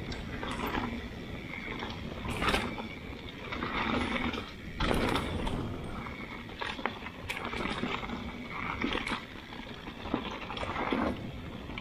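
Mountain bike riding fast down dirt singletrack: tyres rolling over dirt and dry leaves with a steady rumble and wind on the microphone, and the bike clattering with sharp knocks every second or two as it hits rocks and roots.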